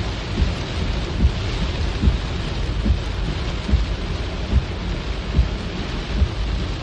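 Heavy rain pouring down in a steady, dense hiss with a deep rumble underneath, and short low thuds at regular intervals, about one a second.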